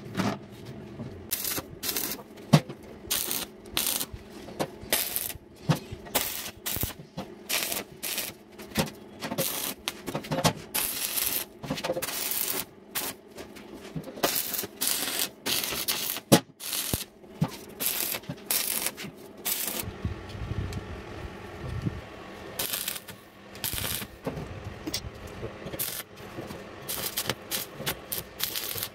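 Stick (arc) welder laying short tack welds on sheet steel: a run of brief, irregular crackling, hissing arcs, with a few sharp hammer taps on the metal.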